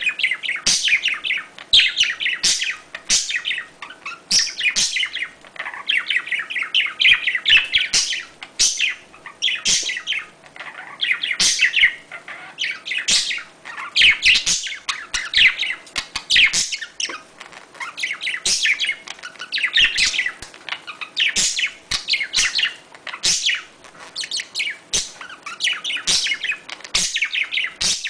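Budgerigars chirping and chattering in fast, dense runs of high chirps, one run after another with short breaks, during mating. Sharp little clicks are scattered between the runs.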